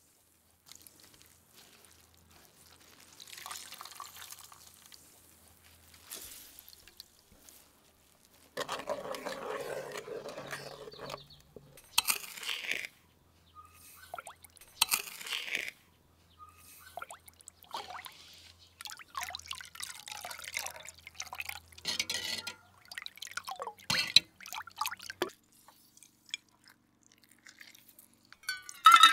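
Rose-petal liquid dripping and pouring in short separate spells into a clay bowl as the petals are squeezed and a metal ladle works the liquid. Near the end comes a louder burst as a lemon half is squeezed by hand.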